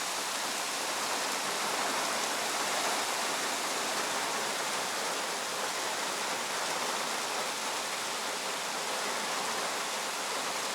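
Steady rush of storm rainwater, with rain and running runoff water blending into one even noise.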